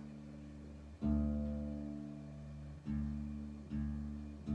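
Acoustic guitar strumming single chords and letting each ring out and fade: four strums, a second in and then about once a second towards the end.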